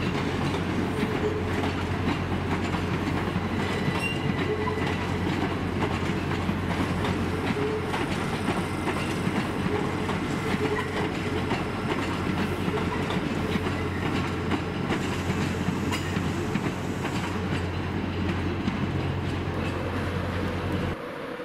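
Electric multiple-unit train running past, its wheels clicking over rail joints and points, with a steady low hum; the sound cuts off sharply just before the end.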